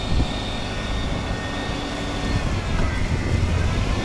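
Heavy diesel dump truck engine running with a steady low rumble, swelling slightly about three seconds in.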